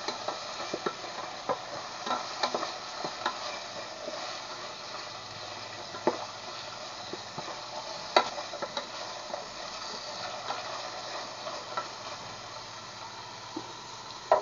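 Sliced onion and ginger sizzling in hot oil in an aluminium pot while being sautéed toward golden brown, stirred with a wooden spatula that now and then clicks against the pot.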